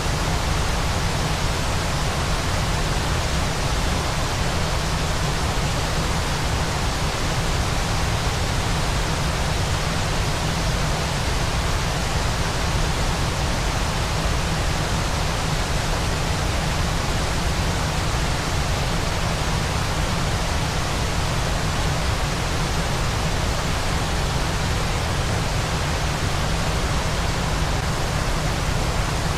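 Waterfall's steady, unvarying rush of falling water, heaviest in the deep low end.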